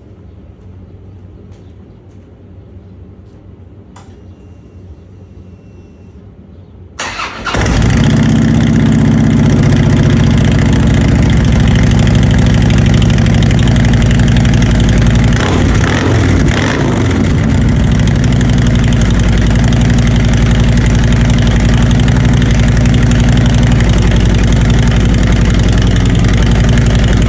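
A vehicle engine cranks and starts about seven seconds in, then runs loud and steady at idle through a newly installed SVT Jackhammer exhaust with Bullie baffles. Before it starts there are a few faint clicks and a short electronic chime.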